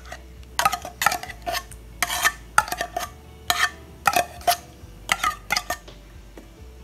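A spoon scraping and clinking against a small metal tin and a bowl as thick canned cream (qishta) is scooped out: a string of irregular clinks and scrapes, two or three a second.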